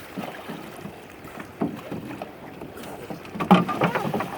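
Canoe paddling: paddles dipping and splashing in the water, with scattered knocks and a louder burst of sound about three and a half seconds in.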